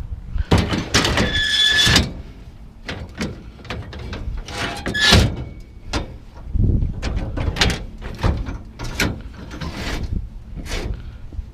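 Heavy metal scrap being shifted and dragged: a long scrape with a high squeal about a second in, another shorter squeal about five seconds in, and repeated knocks and clanks.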